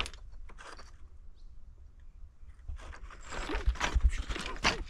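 Footsteps on a slope of loose, flat rock slabs: stones crunching, scraping and clinking as they shift underfoot. The steps pick up about halfway through after a quieter start.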